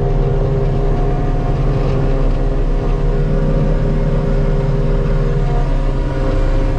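Self-propelled forage harvester running steadily under load while chopping grass silage: a constant engine drone with a few steady tones, no rise or fall.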